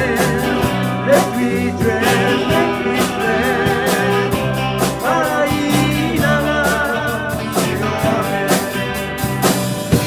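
Band playing rock music: a steady drum beat under guitars and other instruments, with a wavering lead melody on top.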